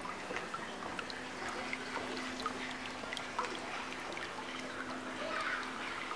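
Water pouring and trickling into a swimming pool, with many small splashing ticks and a steady low hum from about a second in until near the end.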